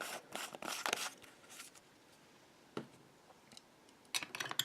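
Small plastic toy medical pieces being handled: a run of light rustles and clicks in the first second and a half, a single click a little later, and a few more clicks near the end.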